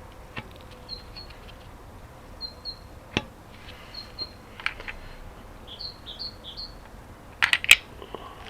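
Small birds chirping in short, high, repeated notes, with scattered sharp clicks and taps. A louder quick cluster of knocks comes about seven and a half seconds in.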